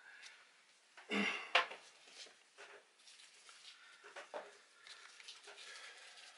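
Handling noises as the electric shaver is picked up and readied: a sharp clack about a second in, then faint light knocks and rustling.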